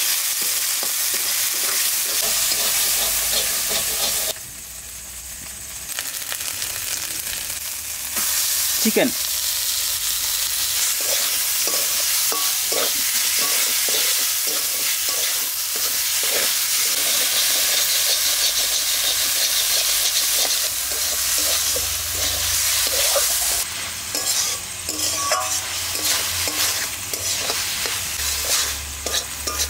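Spice paste and then diced chicken sizzling in hot oil in a metal kadai, stirred with a flat metal spatula that scrapes the pan in repeated strokes.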